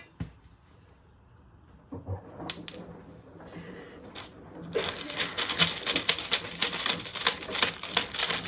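Washing machine starting up: a low motor hum begins about two seconds in. From about five seconds, something loose inside clatters fast and hard in the drum as it spins up.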